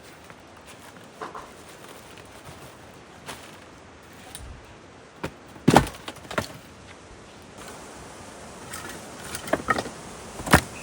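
Pieces of firewood knocking and clattering against each other as they are handled. There are a handful of separate wooden knocks, the loudest just before halfway, with a short cluster near the end.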